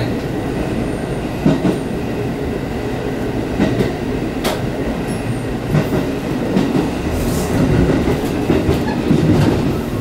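Diesel railcar running at speed, heard from inside the driver's cab: steady engine and running noise, with wheels clacking over rail joints and through the points of a passing loop.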